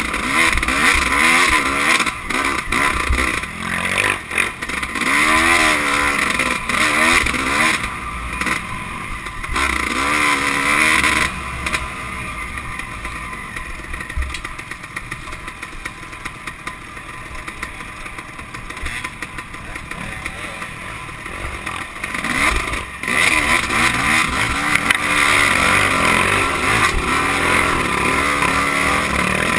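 Dirt bike engine heard on board, revving up and down repeatedly with the throttle as the bike rides a rough trail. About halfway through the revs settle lower and steadier for several seconds, then rise again.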